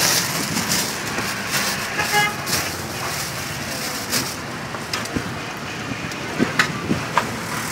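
Steady street traffic noise, with a short vehicle horn toot about two seconds in. A few sharp clicks and knocks come in the second half.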